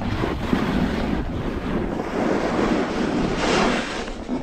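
Wind rushing over a GoPro's microphone at speed, mixed with a snowboard hissing and scraping over snow, swelling and fading through the turns.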